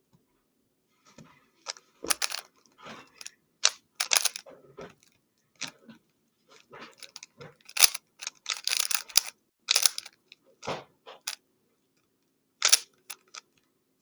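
3x3 Rubik's cube being turned fast during a timed solve: irregular bursts of plastic clicking and clacking as the layers turn, broken by short pauses.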